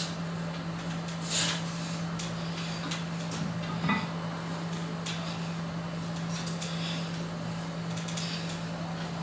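Hanging knee raises on a steel power tower: a sharp exhaled breath about a second and a half in, then a few light clicks and knocks from the frame. A steady low hum runs underneath.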